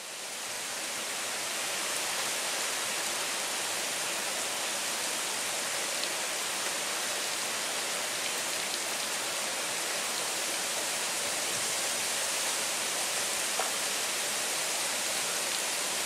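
Steady hiss of heavy typhoon rain falling, fading in over the first couple of seconds and then holding even.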